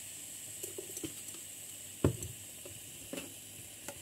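Kitchen handling sounds around a plastic blender jar as salt goes onto the mint: a few light knocks and taps, the loudest about two seconds in, over a faint steady hiss.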